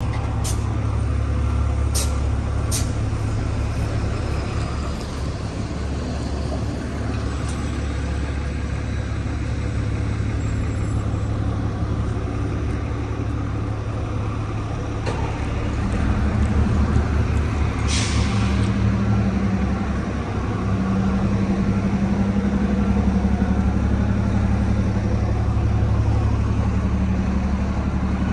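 Diesel city bus engines running with a steady low drone that grows louder a little past halfway. About two-thirds of the way in comes a short hiss of released air, typical of a bus's air brakes, and there are a few sharp clicks near the start.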